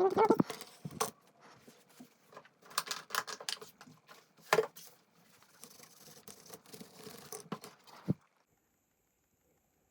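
Small clicks, taps and scraping from laptop parts being handled and taken apart, with a few sharp clicks about a second, four and a half seconds and eight seconds in.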